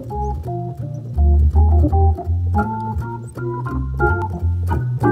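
Organ played solo at the keyboard: a quick run of sustained chords over a strong bass line, the chords changing every half second or so.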